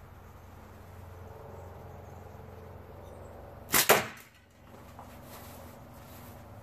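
A Bonegrip PFS pickle-fork slingshot shot: a sharp double snap as the flat bands are released and slap forward, about four seconds in.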